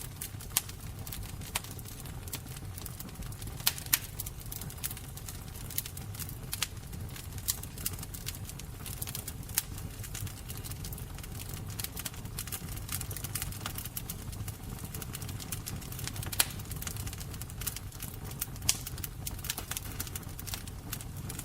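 Fire crackling: irregular sharp pops and snaps over a steady low rumble of the flames.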